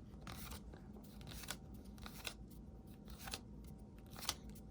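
Topps baseball trading cards being flipped through by hand, cards sliding off the stack with light, irregular papery ticks and snaps, one a little louder near the end.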